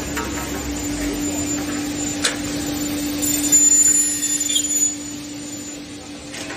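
Aluminium door-and-window profile saw-milling machine running with a steady hum, a sharp click a little over two seconds in, and a louder stretch with a high whine around four seconds in.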